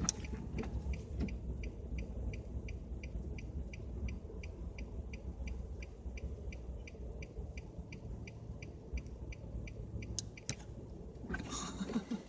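A car's indicator relay clicking steadily, about three ticks a second, over the low rumble of the car cabin; the ticking stops near the end.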